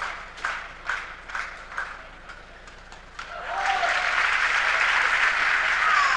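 Badminton spectators clapping in unison, about two claps a second, which die away a little over two seconds in. After a short lull, the crowd breaks into loud applause as the point is won.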